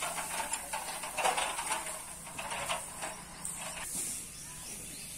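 Loose wheat straw rustling as it is tipped out of a cloth sheet onto a pile and the sheet is shaken and dragged, in irregular bursts that die down after about four seconds.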